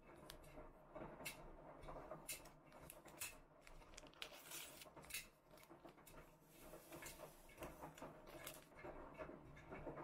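Near silence, with faint scattered clicks, taps and rustles of small kitchen handling.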